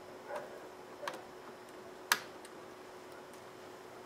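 A few small plastic clicks and ticks as a cable connector is worked loose from a laptop motherboard. The sharpest click comes about two seconds in.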